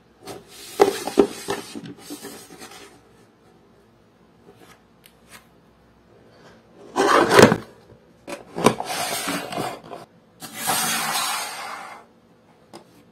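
Cardboard packaging of a diecast model motorcycle being handled: rubbing and light knocks early on, a loud rustling knock about seven seconds in, then two long scraping slides of cardboard on cardboard as the outer sleeve is pulled off the box.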